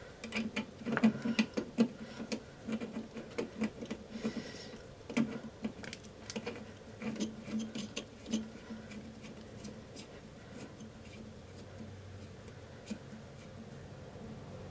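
Small metal plumbing fittings being handled and threaded into place by hand: a run of light clicks and taps that thins out after about nine seconds.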